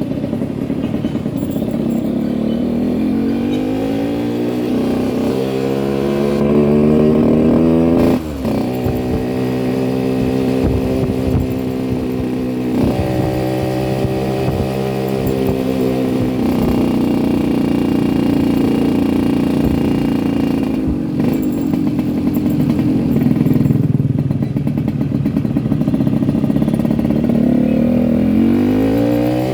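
Yamaha RX-King's two-stroke single-cylinder engine under way. The revs climb, drop sharply at gear changes about a quarter and nearly half of the way in, hold steady through a long stretch, and climb again near the end.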